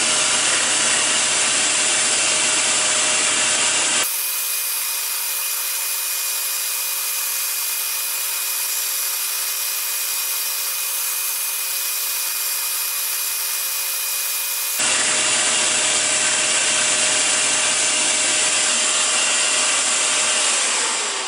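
Hegner scroll saw running steadily, its Olson blade cutting fretwork in birch plywood. Near the end the motor slows with a falling pitch as the saw winds down.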